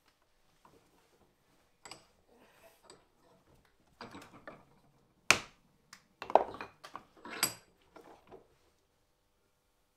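Ball peen hammer tapping a chisel's ferrule and handle home: some light handling knocks, then three sharp taps about a second apart, the first the loudest, followed by a few lighter knocks.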